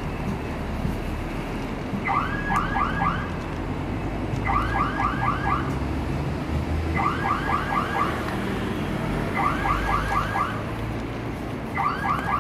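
An alarm sounding in regular bursts, each a quick run of four or five chirps, repeating about every two and a half seconds from about two seconds in, over a low steady rumble.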